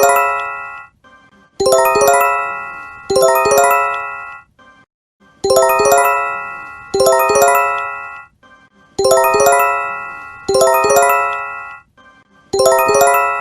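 Japanese J-Alert emergency warning chime sounding over and over: pairs of bright chime chords about a second and a half apart, each opening with a quick ripple of high notes and ringing out as it fades, with a short gap between pairs. It is the alarm tone that announces an earthquake or tsunami warning.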